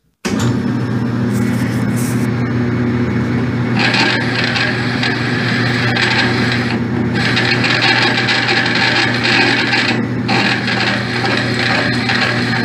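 Myford 254 lathe running with a steady hum. From about four seconds in, a one-inch twist drill in the tailstock cuts into the rusted axle shaft inside the hub, making a rough scraping cutting noise that drops out briefly twice.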